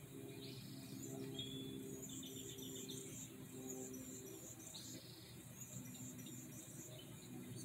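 Faint small-bird chirps and twitters, with a quick trilled series about a second and a half in and a couple of short buzzy notes, over a low steady hum.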